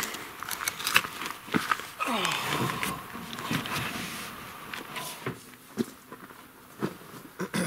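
Rustling and scattered knocks and clicks of sleeping bags and gear being handled in a truck bed, with a short voice-like sound about two seconds in.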